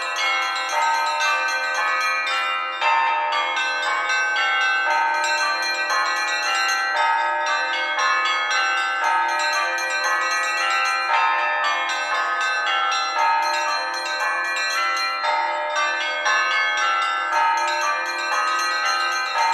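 Orthodox monastery bells rung together in a continuous peal: several bells of different pitches struck in quick, overlapping strokes with no pause.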